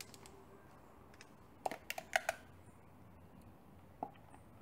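A quick run of about five sharp plastic clicks and taps, then a single one near the end: hands handling the plastic funnel and motor-oil bottle at the engine's oil filler while topping up the oil.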